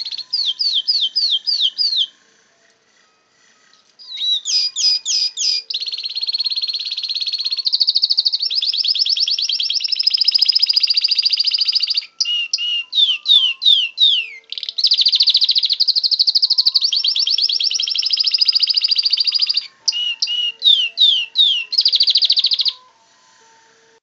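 Domestic canary singing loudly: runs of quick, falling whistled notes, about five a second, alternate with fast rolling trills. The song pauses for about two seconds near the start, breaks briefly twice more, and stops shortly before the end.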